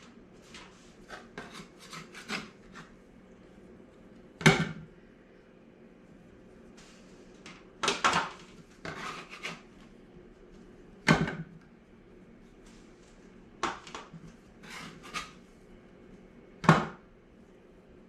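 Kitchen handling noise while cookie dough is put onto a baking sheet: scattered knocks and clatters of utensils and pans, with four louder bangs among lighter taps.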